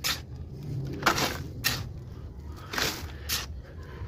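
Garden soil being scooped with a cut-off plastic bottle and tipped into planting containers: several short, gritty scraping swishes.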